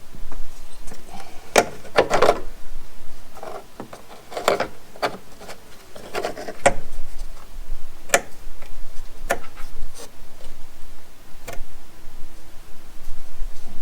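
Hands handling parts and tools: irregular knocks, clicks and short scraping rubs, about a dozen strokes spread unevenly.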